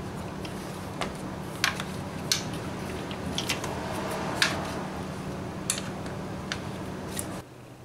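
Irregular sharp metallic clicks and clinks of a ratchet and 10 mm socket working bolts loose, over a steady low hum. The background drops away suddenly near the end.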